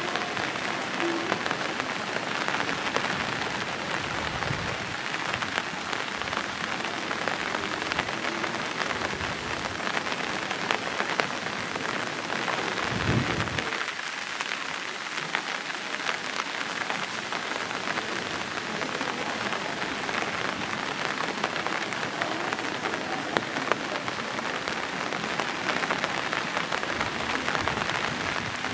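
Steady rain, with many small drops ticking close to the microphone, and a short low thump about thirteen seconds in.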